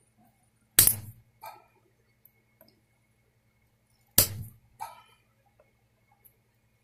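Two sharp snaps, about three and a half seconds apart, as cutters bite through the ends of hard Gold EVO fret wire. Each snap is followed about half a second later by a short, light metallic clink.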